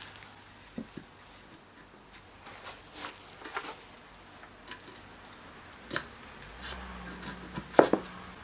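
Wooden moulding flask being set down onto the sand-filled drag and handled: scattered light knocks, taps and scrapes of wood on wood and steel plate, with a sharper knock just before the end.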